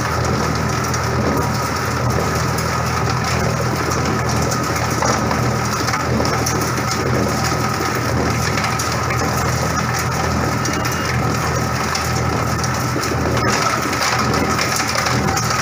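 Coconut shell and wood bark grinder machine running steadily under load. Its motor hums beneath a dense, even crackling rattle of material being ground into powder.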